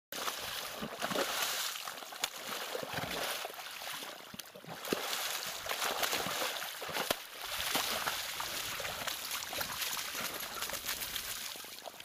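Muddy water sloshing and splashing as a horse rolls in a shallow puddle, with many small sharp splashes, then gets up and stamps through the water near the end.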